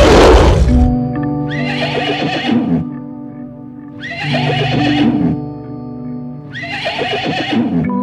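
Horse whinnying three times, each call about a second long and falling in pitch at the end, about two and a half seconds apart, over background music. A loud, rough burst of sound fades out in the first second.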